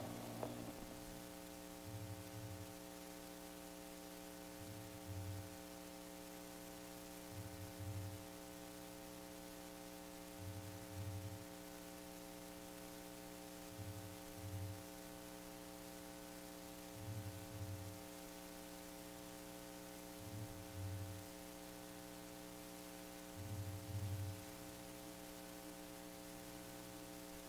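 Steady electrical hum with several tones, and a pair of soft low thumps repeating about every three seconds.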